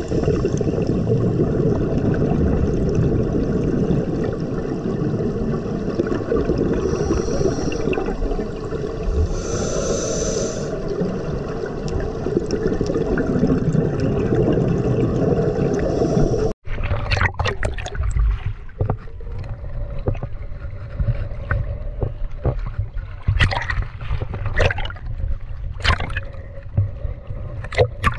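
Muffled underwater noise heard through a GoPro's waterproof housing, dense and steady. After a sudden cut about two-thirds of the way in, water slaps and splashes against the housing at the surface in short, separate strokes.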